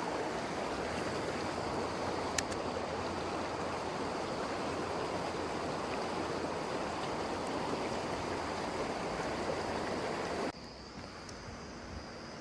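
Mountain stream water running steadily, with a single short click a couple of seconds in. Near the end the water sound cuts off abruptly, leaving a much quieter background.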